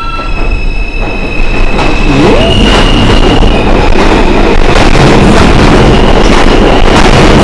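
R160 subway train pulling out of a station and accelerating past close by. A high electric whine from the traction motors sits over the loud noise of steel wheels on rail, with repeated clicks as the wheels cross rail joints. The noise swells about a second and a half in and then stays loud.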